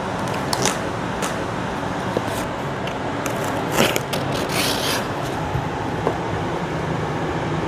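Cardboard shipping box being opened by hand, with scraping and rustling as the flaps are worked and pink crinkle-paper filler is pulled out. The busiest rustling comes about three to five seconds in, over a steady rushing noise.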